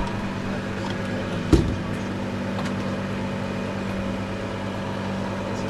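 Electric citrus juicer motor humming steadily, with one sharp knock about a second and a half in.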